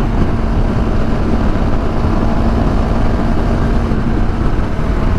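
CFMoto CL-X 700 motorcycle's parallel-twin engine running steadily and loud, with a steady droning tone that drops away about four seconds in.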